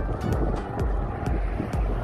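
Wind buffeting the microphone in a heavy, uneven rumble, with music playing underneath and a few faint, irregular clicks.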